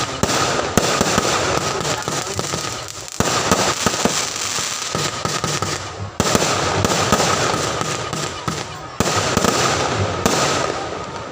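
Aerial fireworks bursting with dense crackling in quick succession. A fresh, louder volley starts about three seconds in, another about six seconds in, and another about nine seconds in.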